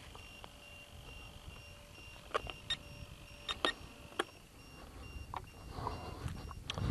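Faint, rapid high-pitched beeping from the quadcopter's add-on LiPo battery-level alarm, warning of a low battery, with a few sharp handling clicks and knocks from about two seconds in.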